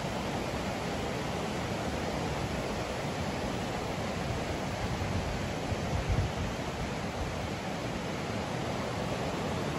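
Steady rushing of the Brandenberger Ache, a fast alpine river, with a brief low rumble about six seconds in.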